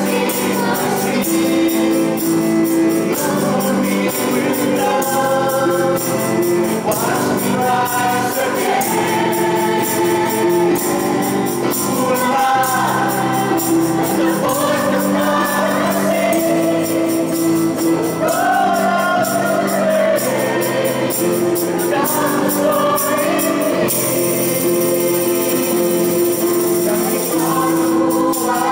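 Mixed choir of men's and women's voices singing a sacred song in unison melody over electric keyboard chords, with a shaken percussion instrument keeping a steady rhythm that grows louder near the end.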